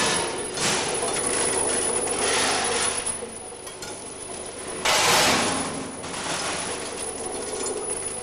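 Loose steel bolts clattering and sliding over the metal pans of a linear weigher as a batch is discharged and the pan refills, over a steady machine hum. There are several rushes of rattling, the loudest about five seconds in.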